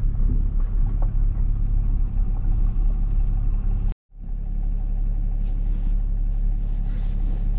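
Car engine and tyre rumble heard from inside the cabin while driving slowly on a gravel track. The sound drops out completely for a moment about four seconds in, then the same steady engine rumble carries on.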